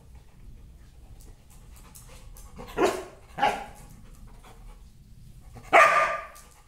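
Yellow Labrador retriever panting, then barking in play: two short barks about three seconds in, and a louder, longer bark near the end.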